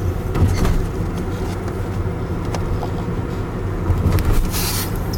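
Steady low rumble of car road noise heard from inside the cabin, with a Boston Terrier puppy snoring over it. The snoring swells briefly about half a second in and again around four seconds in.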